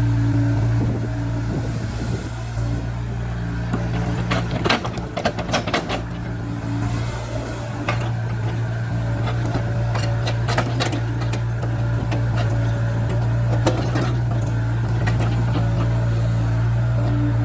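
Caterpillar 307C excavator's diesel engine running steadily, with a cluster of sharp metallic knocks and clatter about four to seven seconds in and single knocks later on.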